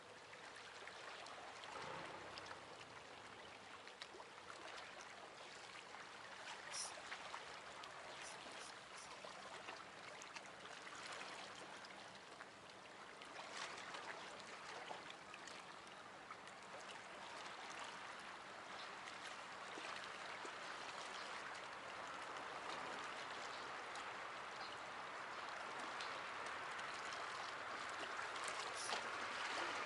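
Seawater lapping and trickling against the rocks at the water's edge, a steady wash that swells slightly near the end, with scattered faint clicks.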